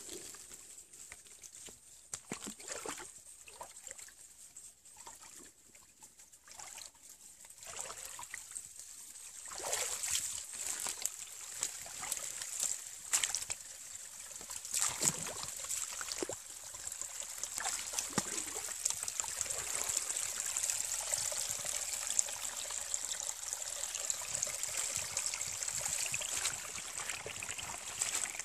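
Shallow forest stream trickling, with a few short splashes in the first part; the running water grows louder and steadier from about ten seconds in.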